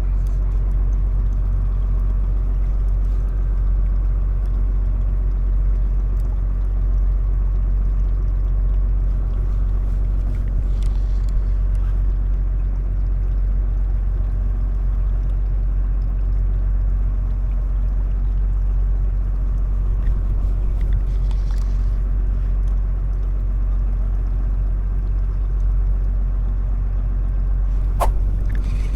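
Fishing boat's engine running with a steady, deep, even drone. A single sharp click comes near the end.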